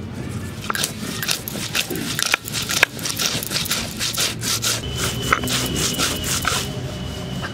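Stone roller (nora) grinding dried red chillies and whole spices on a flat grinding stone (shil): a gritty stone-on-stone scrape with crunching and crackling, in repeated uneven strokes.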